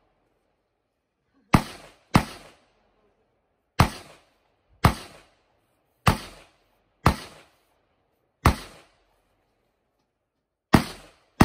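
AR-pattern semi-automatic rifle built on an Aero Precision lower, fired nine times at targets: sharp cracks each with a short echo, some in quick pairs about half a second apart, the rest one to two seconds apart.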